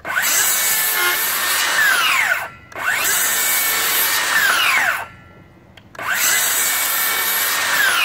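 DeWalt Flexvolt 60V cordless circular saw cutting through a 2x6 board in three runs: each time the motor spins up, the blade saws through the wood, and on trigger release it winds down fast with a falling whine.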